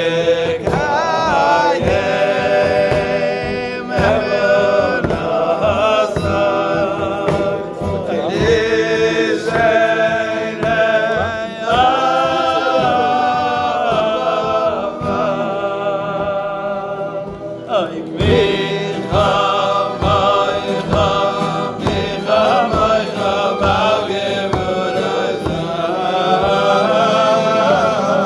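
A group singing a Jewish song together, with a steady beat underneath.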